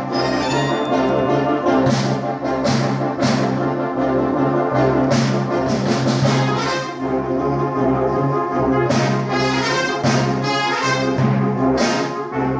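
Live brass band playing, with tubas, euphoniums, trombones and cornets. Sustained low chords carry the music, with accented beats about every second or two.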